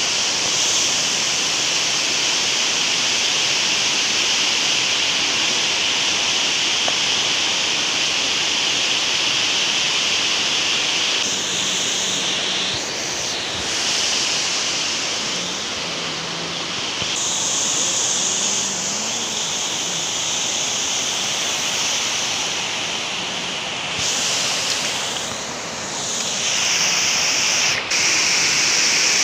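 Water spilling over a low weir and churning in the pool below: a steady rushing hiss with no letup, broken only briefly near the end.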